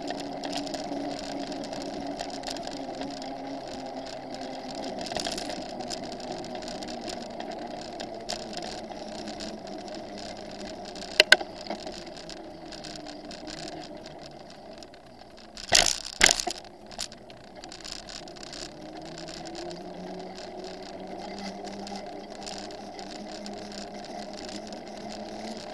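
Bicycle riding along paved path and street, heard from a handlebar-mounted camera: a steady hum of tyres and wind, with a few sharp knocks and rattles about 11 and 16 seconds in.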